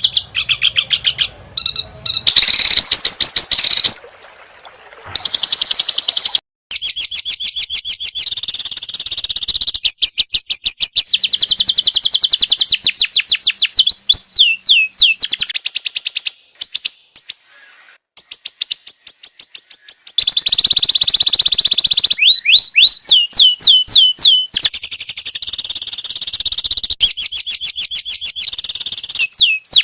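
Songbird training (masteran) recording: loud, high bird song made of long, fast trills and rattles, with runs of downward-slurred whistled notes and a couple of brief pauses.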